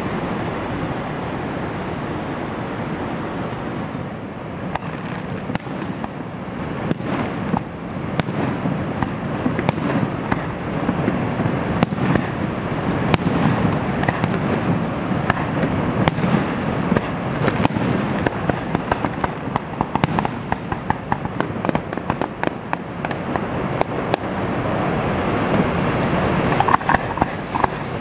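Fireworks display: aerial shells going off in a run of sharp bangs and cracks over a steady rushing background, starting a few seconds in. The bangs come thicker near the end, breaking into dense crackling.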